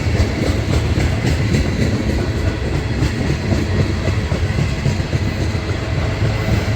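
Freight cars of a CSX manifest train, auto racks among them, rolling past close by: a steady, loud rumble of steel wheels on the rail with clicks as the wheels pass over rail joints.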